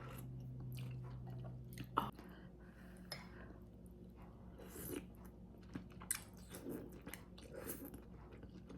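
Faint close-up chewing: soft mouth smacks and small clicks of someone eating. A low steady hum runs for about the first two seconds.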